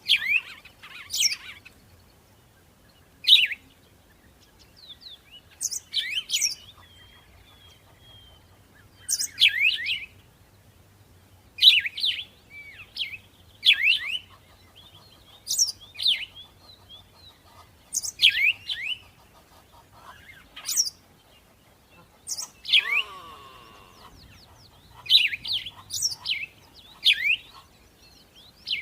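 Songbird chirping: short, sharp, falling chirp phrases repeated every one to two seconds, with a different, lower call about two-thirds of the way through.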